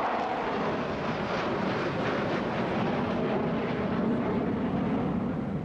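Jet engine roar from a formation of F-16 Fighting Falcon fighters flying overhead: a steady, noisy roar whose pitch sinks lower over the few seconds.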